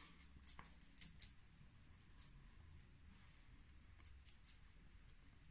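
Near silence with faint, irregular soft ticks and taps from a makeup sponge being dabbed against the face to blend foundation.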